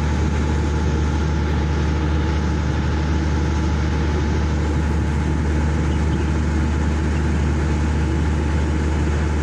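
Diesel generator set running steadily, a constant low drone with no change in speed.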